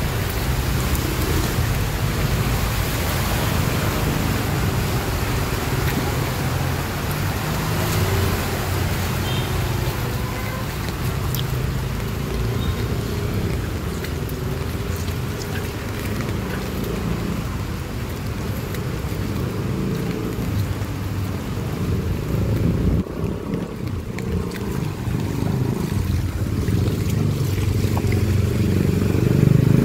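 A motor vehicle's engine running steadily as it drives through shallow floodwater on a street, with water swishing around it; a little louder near the end.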